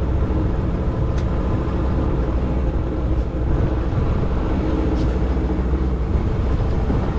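Boat motor running steadily at idle, a loud, even low rumble, with two faint ticks about a second and five seconds in.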